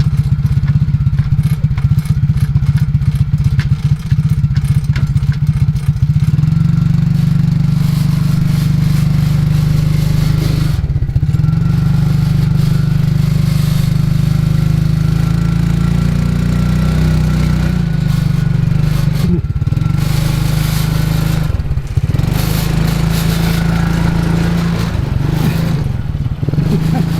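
ATV engine running as the quad is driven in reverse and manoeuvred. The engine note gets louder and heavier about six seconds in and dips briefly a few times.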